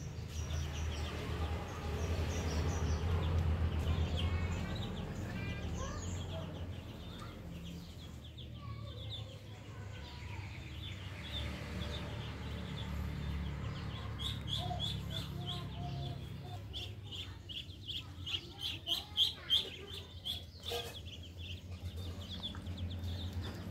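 Muscovy ducklings peeping, the short high calls coming thick and fast in the second half.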